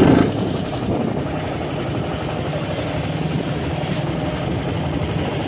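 Motorcycle engine running at a steady cruising speed while riding, with wind and road noise on the microphone.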